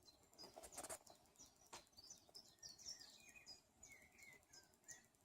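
Faint birds chirping and tweeting in a cat-entertainment video playing on a screen: many short high chirps and quick whistled glides. A few soft clicks in the first two seconds.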